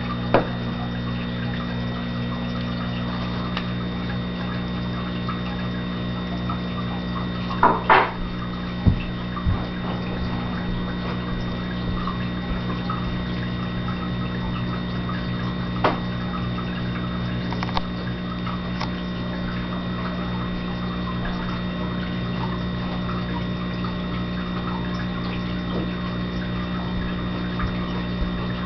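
A steady low electrical hum under a constant hiss, with a few short knocks about eight seconds in and a couple of faint clicks later.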